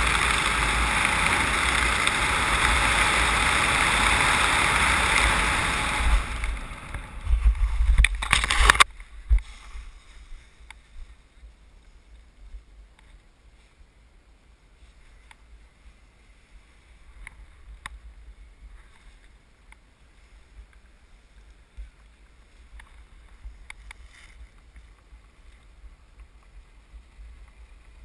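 Wind rushing steadily over the jumper's camera microphone during a parachute descent. Around six seconds in it turns gusty and louder, then cuts off abruptly near nine seconds as the canopy lands. After that there is only faint rustling and light clicks.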